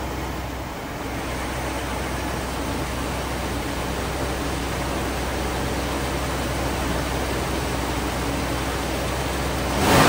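Mercedes C126 coupe's V8 idling steadily, running noticeably smoother now that a new distributor cap and rotor have cured the misfire.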